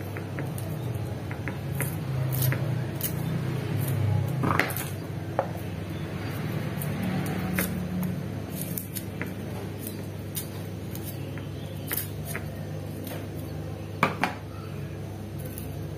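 Shallots being peeled with a kitchen knife: scattered small clicks and scrapes of the blade against the papery skins, with a couple of sharper knocks of the knife on a plastic box near the end. A steady low hum runs underneath.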